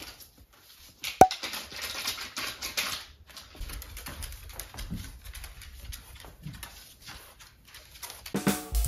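French bulldog's claws clicking on a hard floor as it moves about: an uneven run of quick ticks, thickest for a couple of seconds after one sharper click about a second in. Music comes in right at the end.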